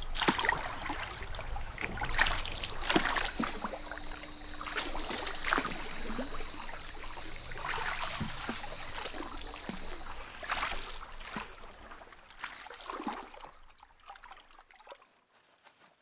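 Water splashing and sloshing as an armadillo paddles at the surface. A steady high-pitched buzz joins about three seconds in and stops abruptly after about ten seconds. The splashing fades out near the end.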